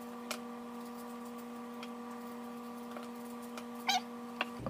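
A steady hum, one low tone with evenly spaced overtones, runs under a few faint clicks and a short crunch just before the end as a kitchen knife cuts into a pear.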